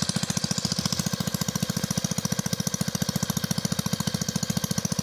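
Small engine running steadily with an even, rapid beat.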